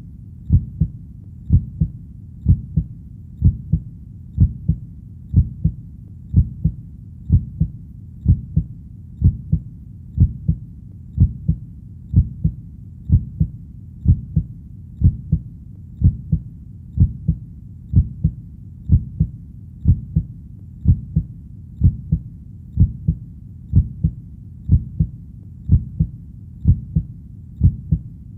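Heartbeat: a steady double thump, lub-dub, about once a second, low-pitched, over a faint low rumble.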